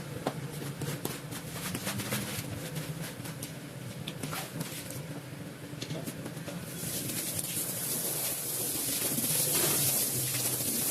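Rug cleaning with water: scattered clicks and scrapes over a low machine hum, then a loud hiss of water spraying from about seven seconds in.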